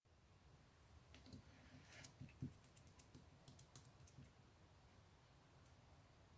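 Clear slime being handled, giving faint small clicks and pops in a quick irregular run from about one to four seconds in, then a low steady background.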